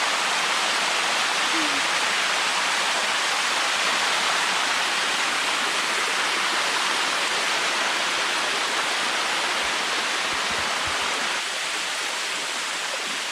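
Steady rushing of water tumbling over the shallow limestone steps of a waterfall, heard from close by; it eases slightly near the end.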